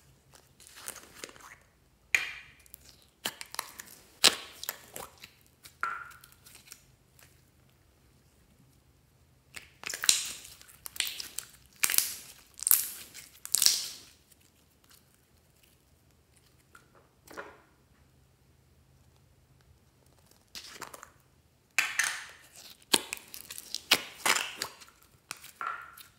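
Glossy slime being squeezed, stretched and folded by hand, making sticky, wet squishing and popping sounds in bouts of a few seconds with quiet pauses between. Near the start, a plastic container is squeezed out over the slime.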